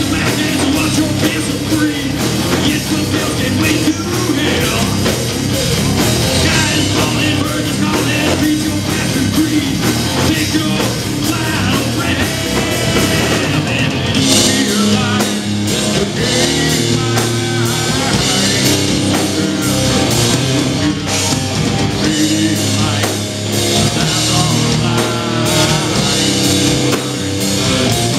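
Heavy metal band playing live: distorted electric guitar, bass and drum kit, with a singer on vocals. About halfway through the sound gets brighter and fuller as the band plays harder.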